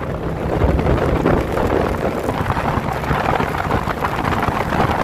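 Motorcycle engine running on the move, with heavy wind buffeting the microphone.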